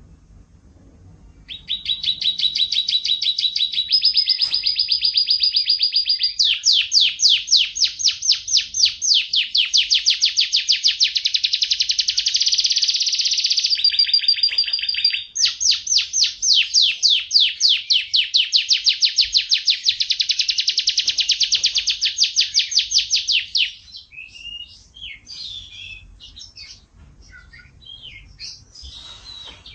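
Domestic canary singing a long, loud song of rapid trills, switching to a new repeated phrase several times, then breaking off near the end into scattered short chirps.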